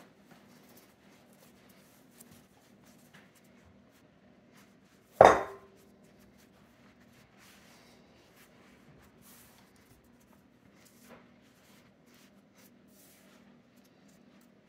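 Pasta dough being kneaded by hand on a stone countertop: faint soft pressing and rubbing, with one sharp, loud knock about five seconds in.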